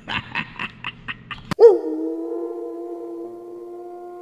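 A quick run of about eight short beats, then a sharp crack about a second and a half in, followed by a long wolf howl sound effect held on one steady pitch.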